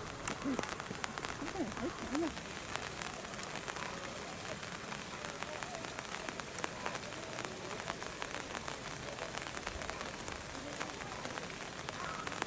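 Steady rain falling on tree leaves, with many individual drops ticking.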